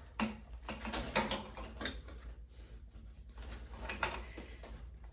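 Bassinet parts being handled and fitted together: scattered light clicks, knocks and rattles at an uneven pace.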